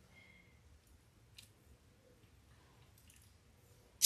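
Faint small clicks of craft work on a tabletop, then near the end a short loud rustling rattle as a hand scoops into a foil pie pan full of candy sprinkles.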